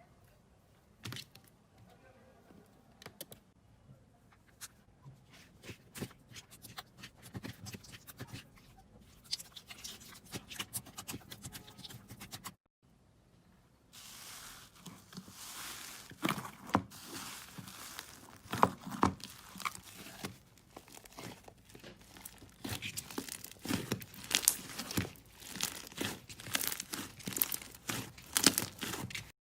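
Slime being squeezed and stretched by hand, giving runs of small crackling pops and clicks. After a short break about thirteen seconds in, a louder stretch follows with sharper, denser pops.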